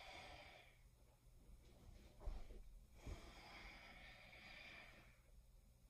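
Near silence, with faint breathing and a soft thump a little over two seconds in.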